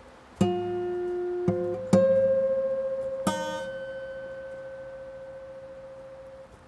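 Guitar music: a few plucked notes and chords, the last one, about three seconds in, ringing out slowly and fading away.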